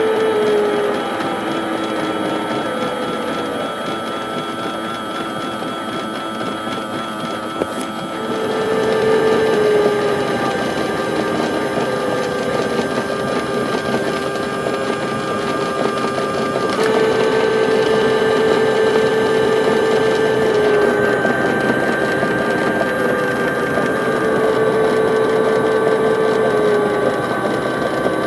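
Battery-powered toy washing machine's small electric motor turning the drum, whining steadily in repeated runs of a few seconds, each ending with a drop in pitch.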